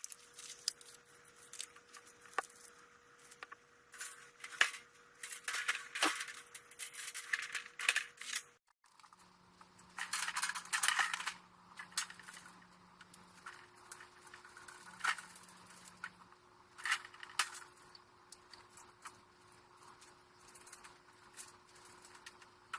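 Small metal clinks, scrapes and rattles in short bouts as machine screws are worked through holes in a metal pegboard.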